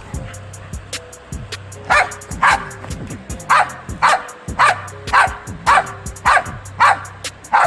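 A dog barking or yipping in short, sharp, loud calls, mostly in quick pairs about half a second apart, starting about two seconds in, over steady background music.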